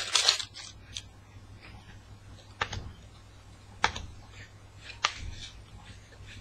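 Trading cards being handled and leafed through, with three sharp clicks about a second apart as cards snap against each other or onto a table, and faint rustling between.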